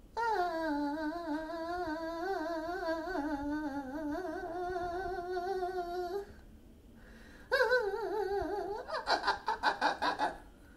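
A person humming one long, wavering note for about six seconds, then, after a short pause, a shorter note that slides down in pitch and breaks into quick, laugh-like pulses near the end.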